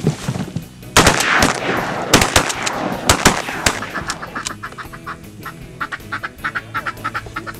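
A volley of shotgun shots, about six in under three seconds, each trailing off in a smear of echo. Near the end comes a rapid run of duck quacks.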